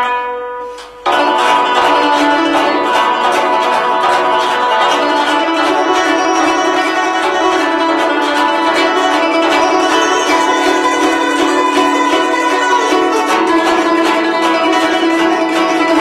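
Guzheng (Chinese plucked zither) played solo: a single note dies away, then about a second in dense, fast plucking comes in loud and keeps going without a break.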